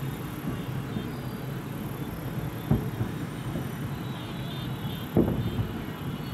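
Aerial fireworks display: a continuous low rumble of bursting shells, with two louder booms, one a little under three seconds in and one about five seconds in.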